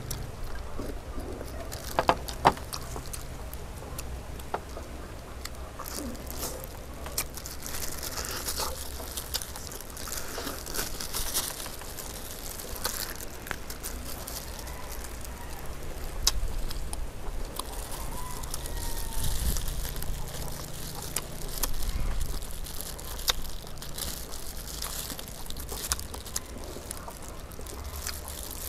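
Close-up eating sounds: chewing and mouth noises while roast chicken is pulled apart by hand, with crackling and crunching of the crisp skin and crinkling of plastic food gloves, broken by scattered sharp clicks. A faint low hum runs underneath.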